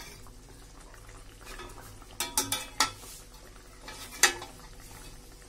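Metal spatula clinking and scraping against a steel kadai while stirring a simmering fish curry, over the quiet bubbling of the gravy. There is a quick run of about four clinks around two seconds in and another near the end.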